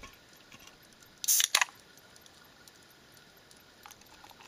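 Ring-pull of an aluminium drink can opened: a sharp crack and hiss of escaping gas about a second in, lasting under half a second.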